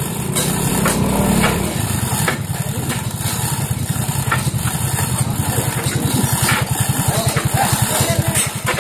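A small engine idling with a steady fast low pulse, with a few sharp knocks now and then.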